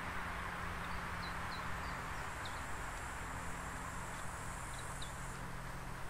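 Small birds giving short, high chirps here and there over a steady background rush with a low hum, typical of traffic on a nearby road.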